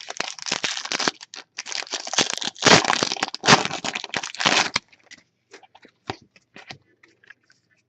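Foil wrapper of a trading-card pack being torn open and crinkled, a dense crackling for about five seconds, then a few faint clicks.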